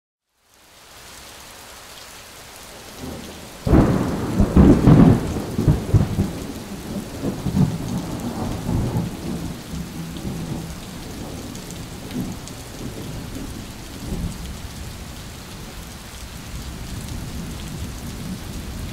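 Steady rain with a rumble of thunder that comes in about four seconds in and dies away over the next few seconds.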